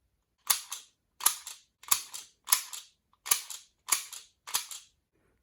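Seven gunshot sound effects in a steady rhythm, about one every two-thirds of a second. Each is a sharp crack followed closely by a smaller second crack.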